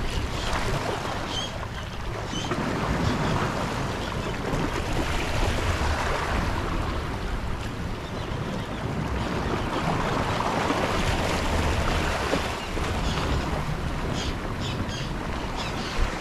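Sea waves washing and surging, swelling up a few times, with wind rumbling on the microphone.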